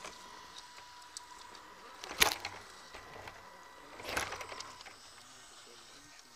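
Onboard sound of a small electric RC rock crawler driving over rough, rocky forest ground. Two louder rough bursts of scraping and bumping come about two and four seconds in, as the truck jolts over the terrain.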